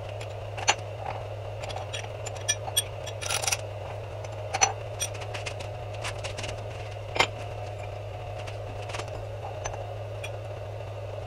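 Scattered light metal clicks and clinks, a handful over several seconds, as the steel workpiece and its clamp hardware are handled on the milling machine table, over a steady low hum.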